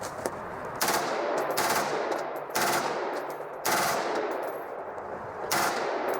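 Rapid machine-gun fire from the M16, coming in about five bursts.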